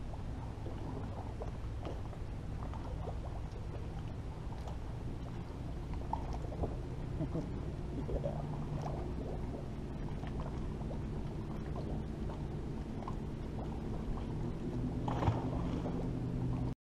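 Water lapping and gurgling against a bass boat's hull over a low steady hum, with small knocks and clicks from handling on the deck. A brief splash near the end as the bass is let back into the water.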